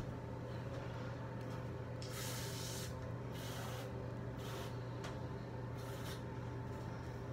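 Aerosol cleaner spray can hissing in bursts: one long spray about two seconds in, then several shorter squirts, over a steady low hum.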